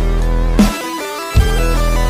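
Electronic background music with held synth tones and heavy bass-drum beats.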